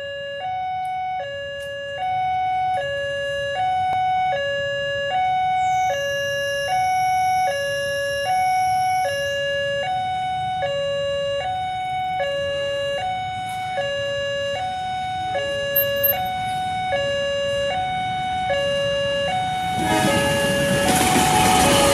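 Railway level-crossing warning alarm sounding an alternating two-tone electronic signal, about one high-low cycle a second, warning that a train is approaching. About two seconds before the end, the rumble of the passing train rises under it.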